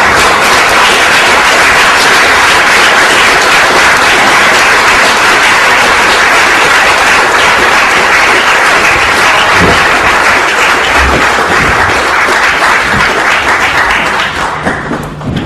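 Audience applauding, a loud, steady clapping that dies down near the end.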